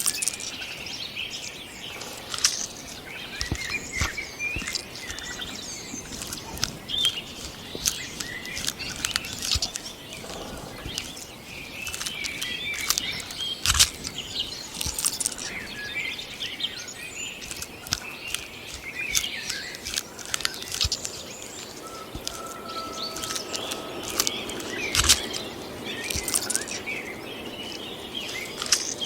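Outdoor nature ambience: birds chirping in short calls, with frequent sharp clicks and rustles throughout.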